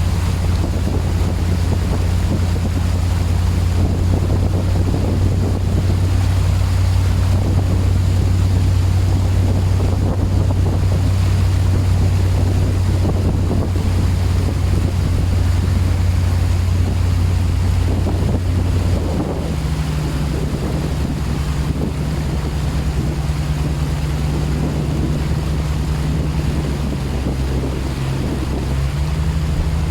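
4x4's engine running steadily as it wades through floodwater, with a constant rush and splash of water around the vehicle. About two-thirds of the way in the engine note steps up to a higher pitch and holds there.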